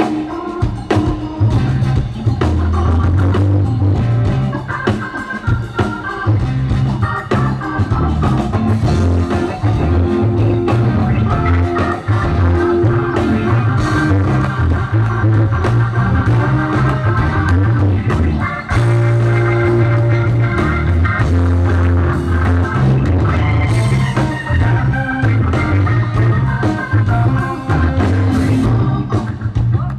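Live rock-soul band playing an instrumental break with no singing: drums and a steady, pulsing bass line under guitar and organ parts.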